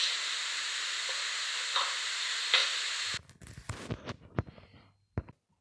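Steady hiss from the soundtrack of a lab demonstration video, with two faint knocks, stopping abruptly about three seconds in. After it, a few light clicks.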